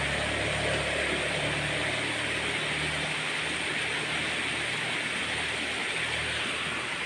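Steady rushing of flowing water, with a faint low hum underneath.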